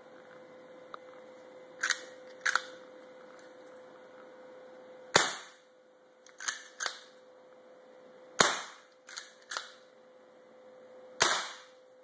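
Airsoft Mare's Leg, a cut-down 1892-style lever-action, fired three times about three seconds apart, each shot a sharp crack. The lever is worked between shots, two clicks each time, once before the first shot and after each shot.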